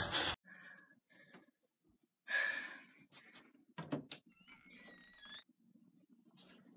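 A burst of loud noise cuts off suddenly at the start, then quiet. A soft hiss, a thump about four seconds in, and right after it a wooden door's hinge creaking with a wavering squeak for about a second.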